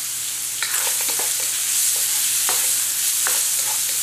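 Shrimp and garlic sizzling in hot oil in a wok, with a spatula scraping and knocking against the wok in a series of stirring strokes from about half a second in.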